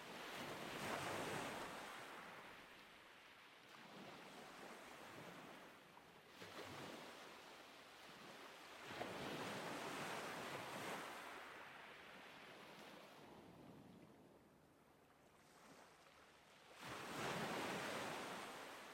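Outdoor rushing noise, like surf or wind, that swells and fades in slow surges every few seconds, with no steady tone in it.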